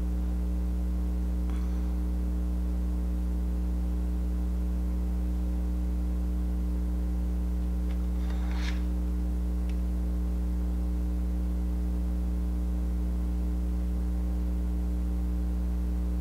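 Steady low electrical mains hum with a stack of higher overtones. A faint brief noise comes about eight and a half seconds in.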